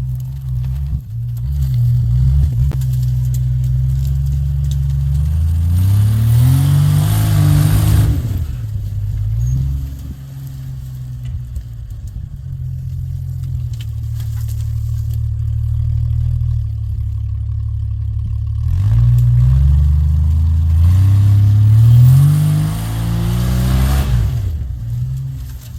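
Off-road vehicle engine running low and steady, revved up twice in long rising pulls that drop back off, as when working up a steep rock line.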